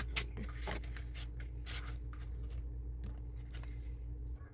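Irregular small clicks and light rustling of thin model-kit parts being handled and picked out for assembly, over a steady low hum that cuts off shortly before the end.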